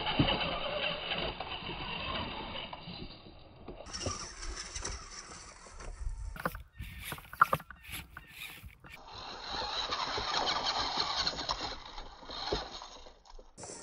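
Small RC rock crawler running over granite boulders: its motor and gears whir, with scattered clicks of tyres and chassis against the rock. The sound changes abruptly a few times.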